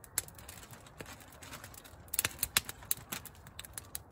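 Wood campfire crackling and popping: sharp, irregular snaps, most crowded between about two and three seconds in, from dry burning wood.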